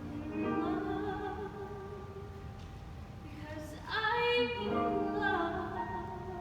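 A woman singing a musical-theatre song solo, holding long notes, with a louder, higher phrase about four seconds in.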